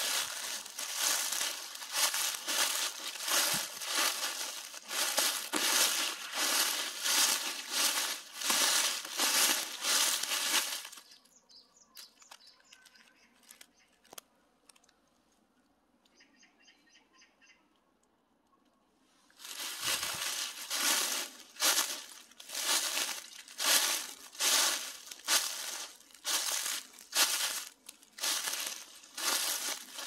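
Footsteps through last year's dry fallen leaves at a steady walking pace. The steps stop for about eight seconds midway, then start again.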